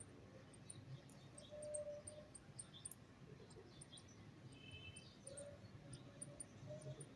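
Faint, scattered bird chirps over a low background hum, with a brief steady note about two seconds in and again near the end.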